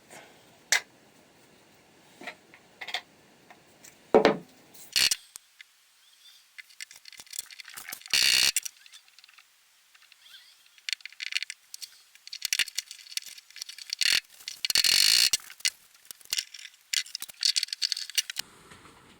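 Workshop handling noises: scattered sharp clicks and knocks, with short rattling, scraping bursts about 8 and 15 seconds in and runs of quick metallic clicks near the end.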